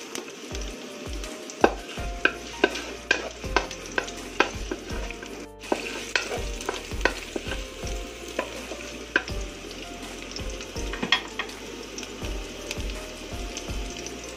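Diced onion sizzling in hot oil in a nonstick frying pan, stirred with a wooden spatula. The spatula knocks and scrapes the pan in frequent, irregular clicks over a steady sizzle.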